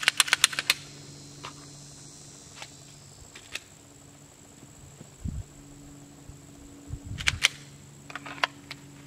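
Glock 19 Gen 5 pistol firing: a quick string of sharp cracks in the first second, then a few single cracks and two short clusters of cracks later on.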